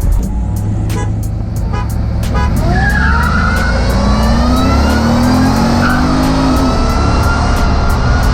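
V8 engine accelerating hard at full throttle during a drag race, its pitch climbing steadily, dropping once about two-thirds through at a gear change, then climbing again.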